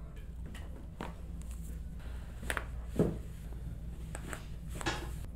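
Several short clicks and knocks during a chiropractic treatment. The loudest, deeper knock comes about three seconds in, over a steady low room hum.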